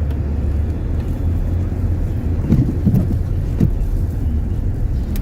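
Low, steady rumble of a vehicle running, with a few brief muffled sounds about halfway through.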